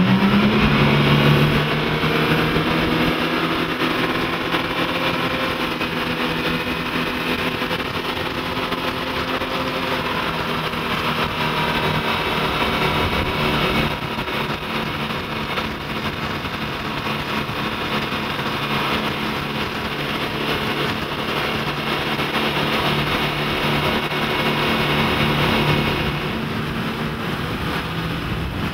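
Twin Mercury 225 hp four-stroke outboard engines driving the boat under way. The engine note rises in pitch at the start as the boat picks up speed, then holds steady.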